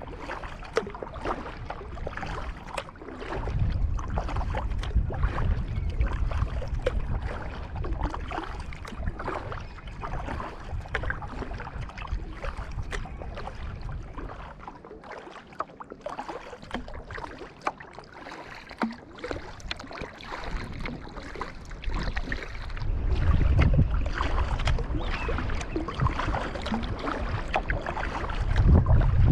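Kayak paddle strokes splashing in river water, with wind buffeting the microphone in a low rumble that comes and goes.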